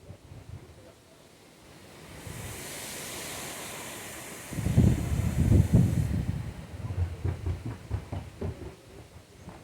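A strong gust of wind: a rushing hiss through pine trees builds up, then heavy, irregular wind buffeting on the microphone that slowly eases off.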